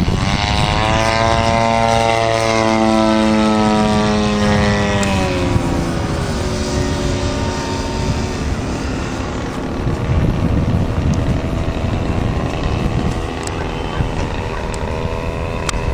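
Radio-controlled aerobatic model airplane's engine and propeller running hard, a strong buzzing drone whose pitch falls about five seconds in as the plane flies past. After that it carries on as a fainter, steady drone while the plane climbs away.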